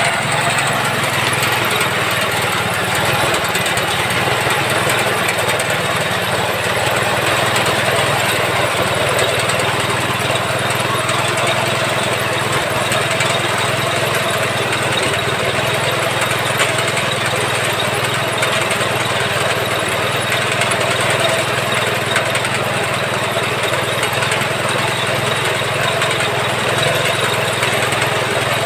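Small 5.5 hp engine running steadily at an even speed.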